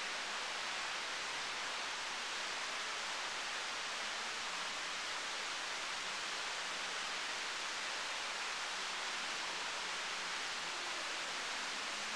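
Tiered courtyard fountain splashing, a steady, even hiss of falling water.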